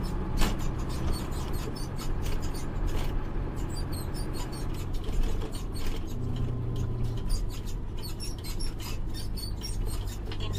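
Truck cab interior on the move at low speed: a low engine hum that shifts pitch a couple of times, with constant light clicking and rattling over it.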